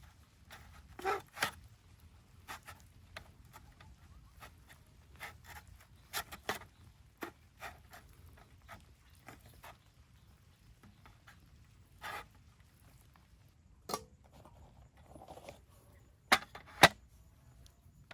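Irregular light clicks and knocks, with two sharper knocks near the end.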